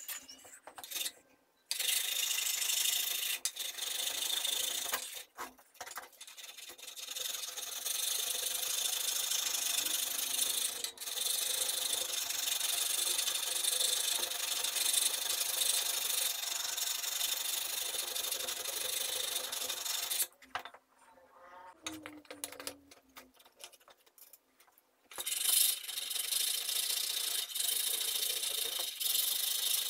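Hand file rasping across the steel of a clamped chisel in long, steady strokes. The filing breaks off briefly about five seconds in and again for several seconds around twenty seconds in, then scraping resumes near the end.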